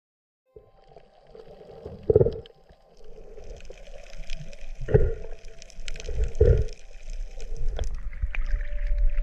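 Muffled water sloshing and gurgling around an action camera in the sea, with faint crackling above it and three louder low whooshes, the first about two seconds in.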